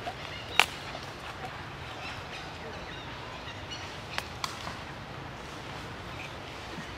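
Steady outdoor background noise broken by one sharp click about half a second in and two lighter clicks about four seconds in.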